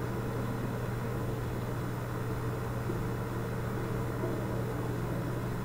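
Steady low hum under an even hiss of background room noise.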